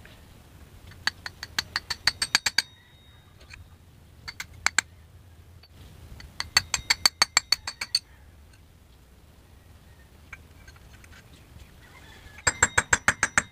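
Hammer rapidly tapping a steel punch to drive the worn needle bearing out of a Yamaha Mio Sporty's male torque drive (secondary sliding sheave): four flurries of sharp metal-on-metal blows with a ringing tone, about six blows a second, with short pauses between flurries.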